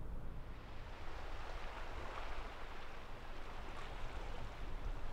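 Ocean surf washing against a rocky shore, a steady rushing hiss that swells in the middle, with wind rumbling on the microphone.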